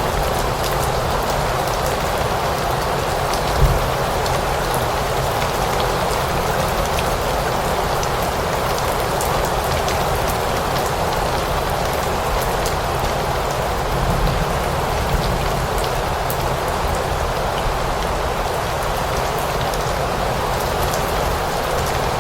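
Steady rain falling, with many individual drops ticking sharply on a surface. A brief low thump comes about three and a half seconds in.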